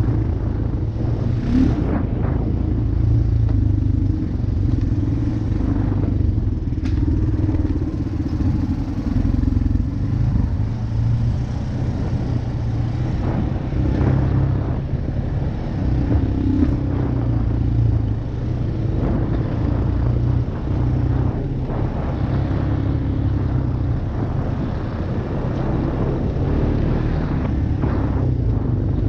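ATV engine running steadily on a trail ride, its pitch rising and falling a little with the throttle. There are a few short knocks and clatters from the machine going over rough ground.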